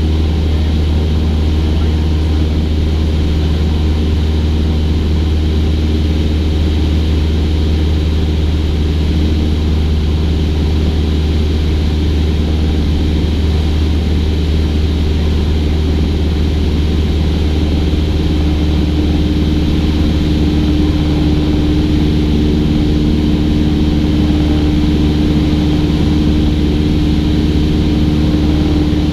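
Cessna 172's single piston engine and propeller droning steadily in cruise, an even low hum with no change in power.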